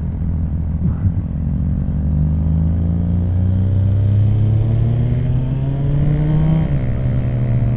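Kawasaki Ninja ZX-9R's carbureted inline-four engine accelerating, its pitch rising steadily for about five seconds, then dropping abruptly near the end.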